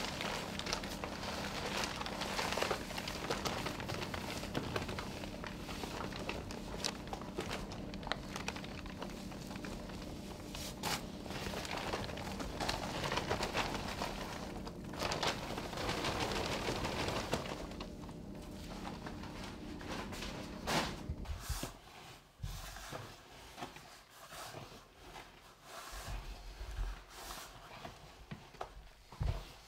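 Small flour mill running, its steady hum and hiss joined by the patter of freshly milled flour pouring from its chute. The hum cuts off about two-thirds of the way in, leaving soft rustling and scraping as hands work flour in a plastic tub.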